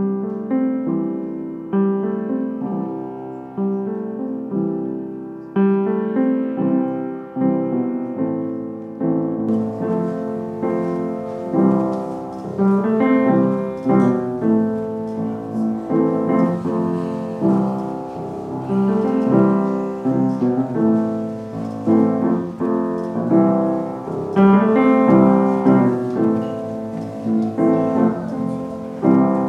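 Piano music: notes and chords struck and left to ring. A faint background noise comes in about nine seconds in.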